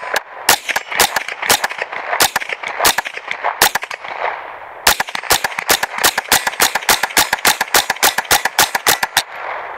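Suppressed Smith & Wesson M&P 15-22 (.22 LR) firing supersonic rounds in quick succession: a fast string of sharp cracks, three to five a second, that stays really quiet for a rifle. There is a short break about four seconds in, then the string resumes and stops shortly before the end. Hits ping off a steel target.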